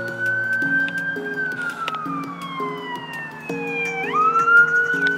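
Police siren wailing: a tone that holds high, slowly falls over about three seconds, then sweeps quickly back up about four seconds in. Background music plays underneath.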